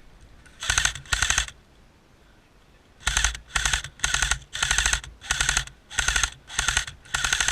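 Airsoft rifle firing short bursts of rapid full-auto shots, two bursts and then about eight more in quick succession, close to the microphone.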